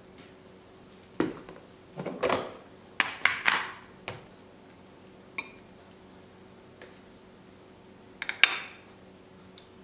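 Kitchenware being handled: a series of irregular clinks and knocks, with the loudest near the end, a sharp clink that rings briefly.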